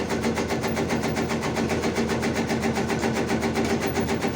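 Motorized tobacco-chopping machine (rajang) running steadily, its engine and cutter giving an even, rapid beat of about seven pulses a second.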